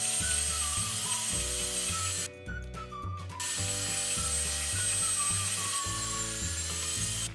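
Small toy dentist drill from a Play-Doh Drill 'n Fill playset whirring with a high whine, in two runs broken by a short stop about two seconds in, over light background music.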